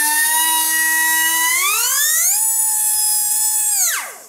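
Pencil-type micro air die grinder running free with a high whine, speeding up about two seconds in, then spinning down as the air is shut off near the end.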